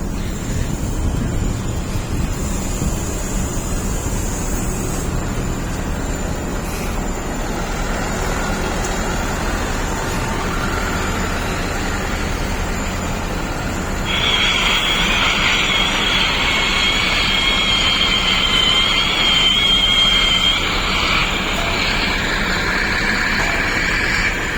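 DH17 bulldozer running with a steady low rumble. About halfway through, a high steady whine or squeal comes in and the sound grows louder.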